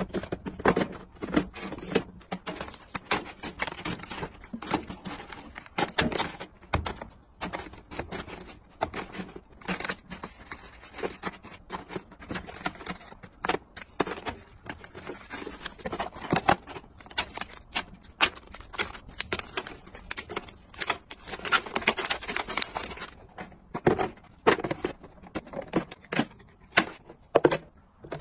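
Cardboard boxes, plastic canisters and paper packets being set down and slid into a metal mesh rolling cart: irregular taps, clacks and rustles.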